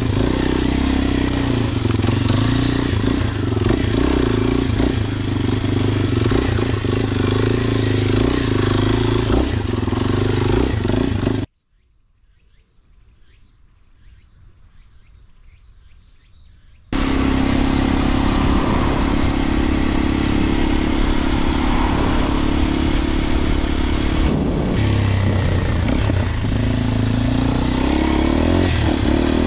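Kawasaki KLX230SM single-cylinder engine running on the move through a Delta Barrel 4-S aftermarket exhaust. About eleven seconds in the sound cuts off abruptly to a faint hush for about five seconds, then the engine comes back just as suddenly, running at a steady pitch.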